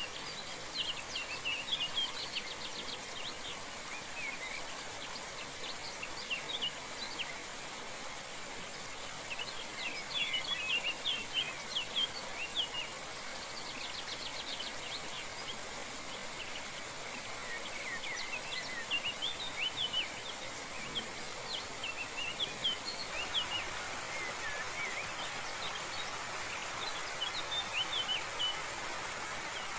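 Steady rush of a forest waterfall, with many birds chirping and twittering over it throughout.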